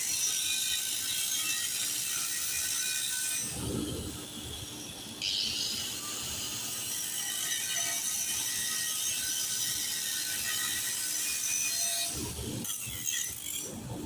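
Electric arc welding crackle, a steady dense crackling hiss. It breaks off about three and a half seconds in for a low rumbling moment, picks up again a couple of seconds later, and is interrupted by more low rumbling near the end.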